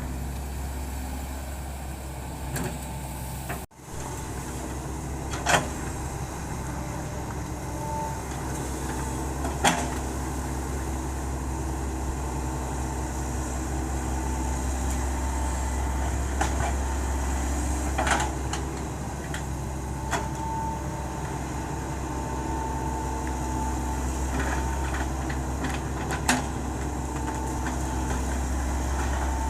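Hitachi Zaxis 110 excavator's diesel engine running steadily while working, with a few sharp metallic knocks spread through. A faint high whine comes and goes over it.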